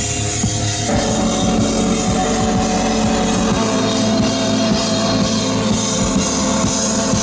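Live drum kit and synthesizer playing loud, dense rock music: steady drum hits under held synth tones that move to a new chord about a second in.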